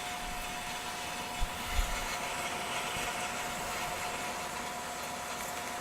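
Acra BS-250VS horizontal metal-cutting bandsaw running with a steady whine over an even mechanical hum as its head lowers on the hydraulic feed. A couple of soft low thumps sound about a second and a half in.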